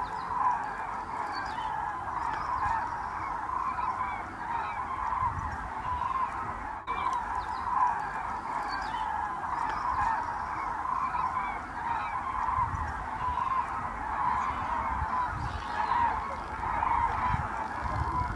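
A large flock of common cranes calling: a dense, continuous chorus of many overlapping calls.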